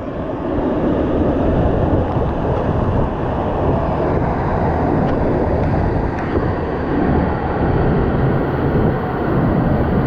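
A waterfall pouring into its plunge pool at close range: a loud, steady rush and roar of falling water.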